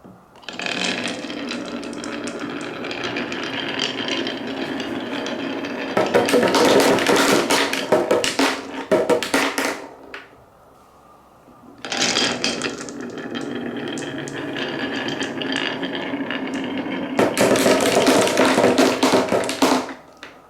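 Marbles rolling down a wooden marble run: a steady rolling rumble along the wooden track, then a few seconds of louder, denser clattering. This happens twice, with a short lull between the two runs.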